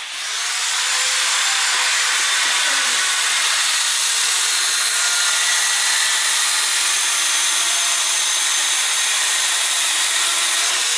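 Power saw cutting firewood: a loud, steady cutting noise that holds without a break.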